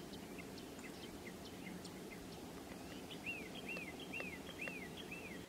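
Wild birds calling: scattered short chirps, then a run of about five repeated up-and-down notes, roughly two a second, over a faint steady outdoor background.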